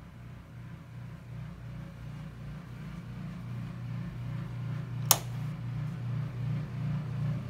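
Washer and dryer running behind closet doors: a steady low hum with a regular pulse that grows louder as it is approached. A single sharp click about five seconds in.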